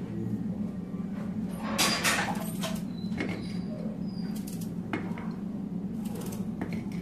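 Small kitchen knife cutting through a red onion held in the hand: a few short, crisp cuts, the loudest about two seconds in, over a steady low hum.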